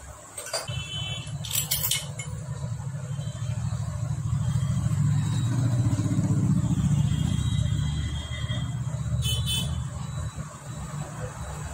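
A motor vehicle engine rumbling by: it grows louder over the first few seconds, holds, then fades near the end. A few sharp metal clinks sound near the start and about nine seconds in.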